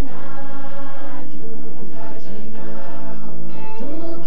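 A group of worshippers singing a gospel hymn together, many voices in unison.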